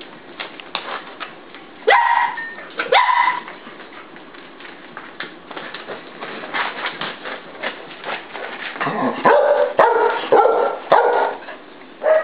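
Cardigan Welsh Corgi puppies barking while they play. Two sharp barks come a couple of seconds in, and a quick run of barks comes near the end, with light clicking and scratching in between.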